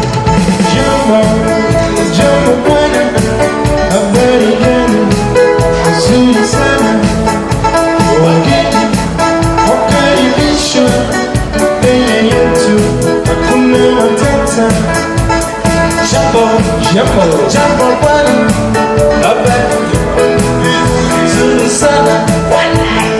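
Loud, upbeat music with singing over a steady, driving drum beat.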